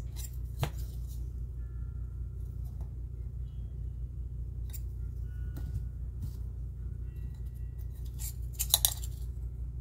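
A small metal tool prying up the thin sheet-metal retaining tabs on a 1977 Corvette dash clock's housing: scattered light metallic clicks and scrapes, with the loudest cluster near the end, over a steady low hum.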